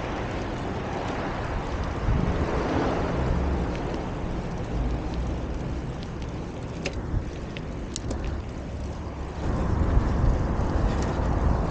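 Wind buffeting the microphone of a camera riding along on a moving bicycle, an uneven low rumble that gets louder near the end, with a few faint high ticks in the middle.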